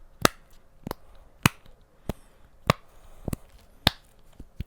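Simple Dimple fidget toy shaped like a dragon, its bubbles pressed one after another near the microphone: a sharp click about every 0.6 seconds, around eight clicks in all.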